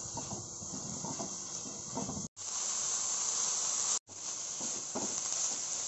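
Chopped onion, tomato and cabbage sizzling in hot oil in a frying pan as they are stirred with a wooden spatula, with soft scrapes of the spatula against the pan. The sound cuts out briefly twice.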